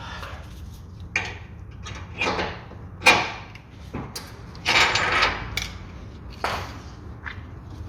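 Metal tools and bolts clunking and scraping as a car's suspension control arm is being fitted: about five separate knocks with short scrapes between them, the sharpest a little after three seconds in.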